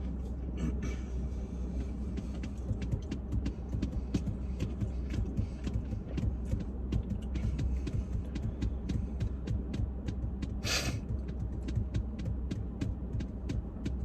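Steady low hum of a car's idling engine heard from inside the cabin, with frequent small clicks and smacks of chewing, and one brief hiss about ten and a half seconds in.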